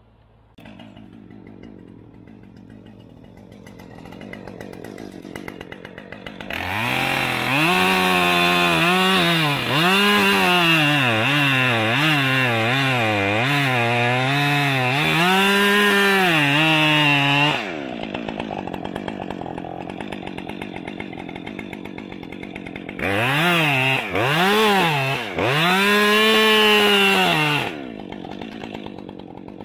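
Two-stroke chainsaw idling, then cutting at full throttle for about ten seconds, its pitch repeatedly dipping and recovering as the chain loads up in the wood. It drops back to idle, is revved in a few short bursts, then runs up again near the end.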